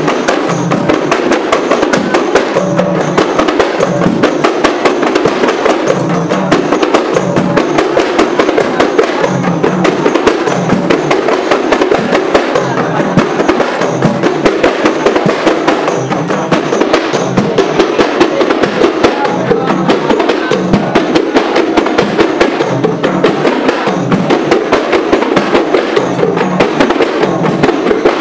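Percussion-led music accompanying a silat performance: rapid drum strokes over a low beat that recurs about once a second, continuing steadily throughout.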